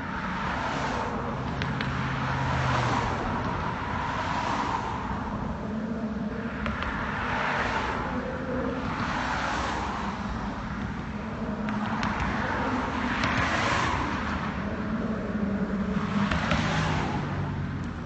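Road traffic: cars pass one after another on the bridge roadway, each a swell of tyre and engine noise that rises and fades over a second or two, over a low engine hum.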